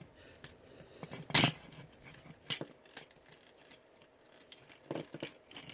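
Scattered small plastic clicks and ticks from an Optimus Prime action figure's joints and parts being moved by hand, with one louder click about a second and a half in and a couple more near the end.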